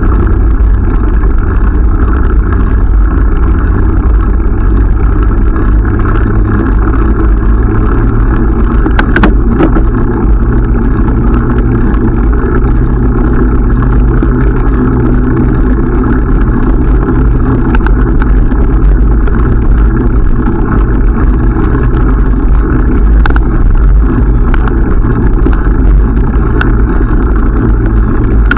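Steady, loud rumble of wind and tyre noise from a bicycle in motion, with a few faint clicks scattered through it.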